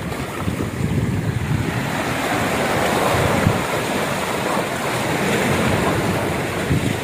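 Sea surf washing and breaking against shoreline rocks, a steady rushing noise, with wind rumbling on the microphone.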